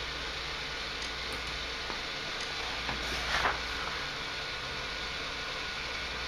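Room tone: a steady hiss with a low hum, with a few faint clicks and a brief slightly louder rustle about three and a half seconds in.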